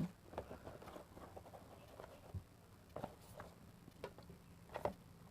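Faint, scattered clicks and light rustles of an earbuds box and its plastic charging case being handled, with the most distinct taps about three seconds in and near the end.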